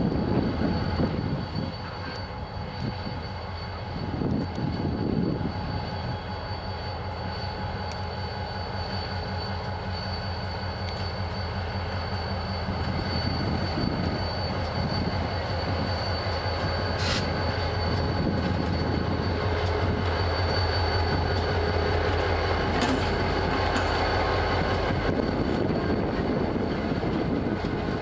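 EMD GT22CW diesel locomotive, its two-stroke 645 engine running with a steady low drone as it hauls container flat wagons slowly past, with a steady high wheel squeal. A few sharp metallic clanks come from the passing wagons past the middle.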